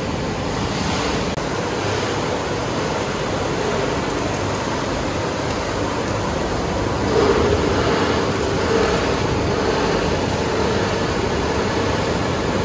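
Steady running noise of an aluminium-plastic separating machine line, a dense even rush with no clear rhythm, growing a little louder about seven seconds in.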